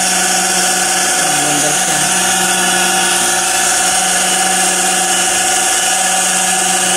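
Industrial sewing machine's SPR clutch motor running steadily after being freed with oil from flood-water sticking, giving a constant hum with a high whirring hiss. It turns freely again and only hums.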